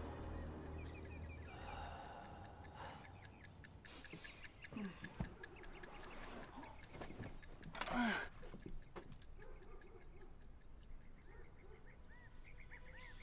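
Faint, steady, quick ticking, about four ticks a second, with one louder whoosh about eight seconds in.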